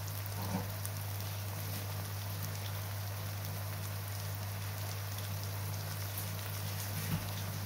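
Lamb liver and diced onions sizzling in hot oil in a frying pan, a steady crackle of fine pops, over a steady low hum. Two faint knocks, about half a second in and near the end.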